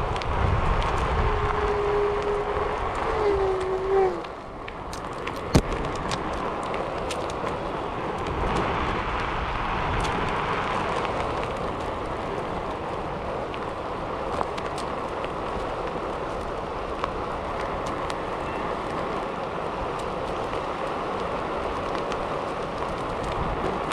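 Riding noise from a Onewheel Pint: a steady rushing of wind on the microphone and the tyre rolling, with a steady whine for the first four seconds that bends and cuts off, and one sharp click a little after five seconds.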